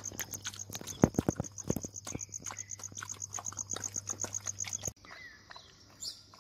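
An insect, most likely a cricket, trilling in quick even pulses of about eight a second over a low steady hum, with a cluster of sharp clicks and knocks about a second in. It all cuts off abruptly about five seconds in.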